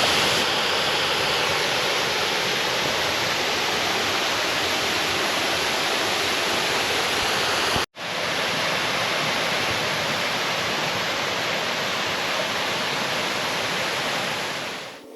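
Waterfall rushing steadily, a loud, even roar of falling water; the sound cuts out for an instant about eight seconds in and resumes unchanged.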